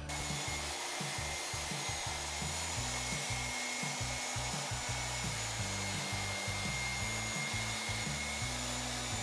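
A table saw running with a steady whirring noise for a test cut. Background music with a stepping bass line plays under it.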